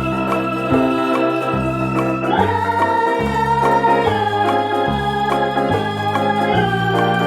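Background music led by sustained organ-like electronic chords over a pulsing bass line.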